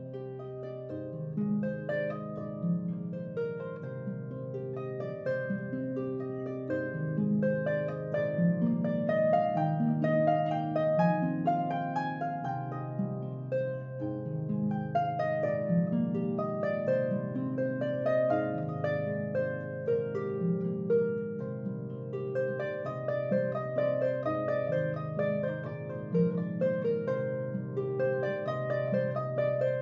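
Harp music: a tune of plucked notes, the melody played over a lower bass line.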